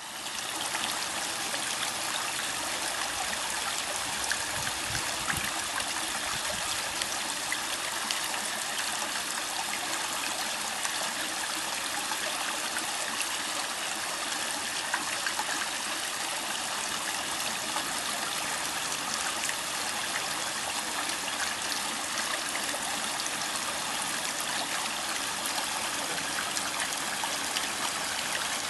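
Water running and trickling steadily over rocks in a shallow backyard pond.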